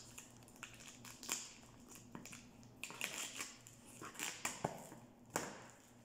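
Cardboard box being cut open with a knife along its taped seams and its flaps pulled apart: irregular scraping, cracking and tearing of cardboard and packing tape.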